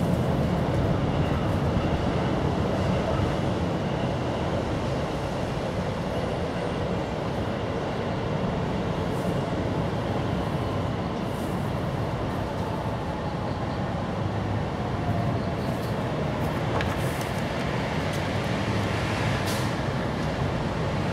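Steady low rumble with a fainter hiss above it.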